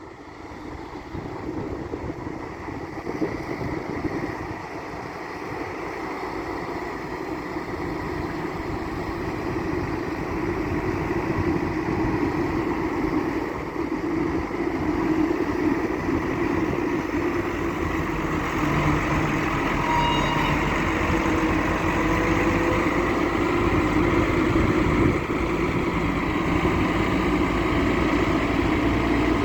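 Develon wheel loader's diesel engine running, growing steadily louder, with a thin steady high whine over the engine note.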